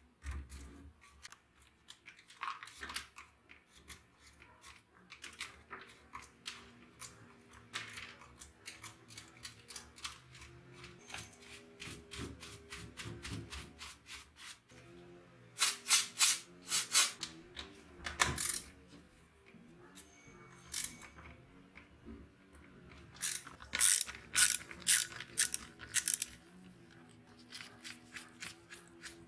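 Hand work on a rusty gasoline chainsaw: small clicks, taps and scrapes of tools and fingers on its plastic and metal housing, with two spells of quick stiff-brush scrubbing strokes, about halfway through and again near the end, as the loudest part. Soft background music plays underneath.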